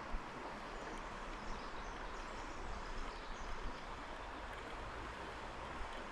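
Small creek flowing: a steady rush of running water.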